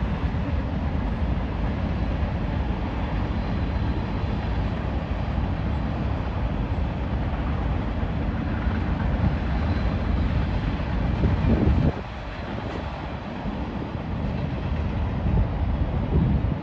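Freight cars of a passing freight train rolling along the track: a steady low rumble of wheels on rail. It drops somewhat in level about twelve seconds in.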